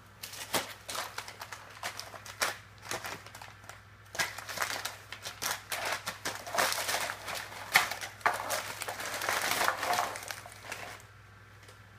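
Crumpled brown paper crinkling and rustling as a cat burrows and pounces in it, in irregular crackles that get denser about four seconds in and stop about a second before the end.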